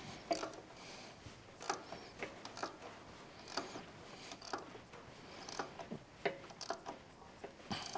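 Faint, irregularly spaced metal clicks from a ratchet wrench being worked on the mounting bolts of a tractor power steering pump.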